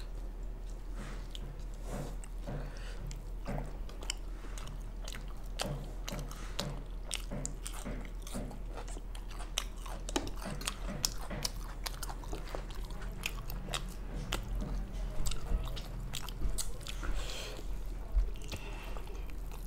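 Close-miked eating sounds: wet chewing and biting of saucy chilli chicken, with many short clicks and scrapes of a metal spoon in a glass serving bowl. A low steady hum runs underneath.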